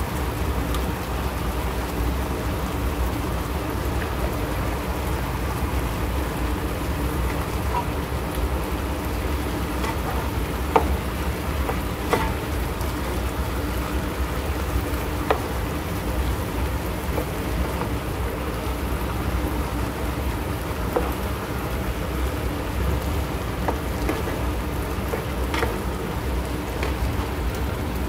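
Mixed vegetables sizzling steadily in a hot skillet while a spatula stirs them, with a few short clicks and scrapes of the spatula against the pan.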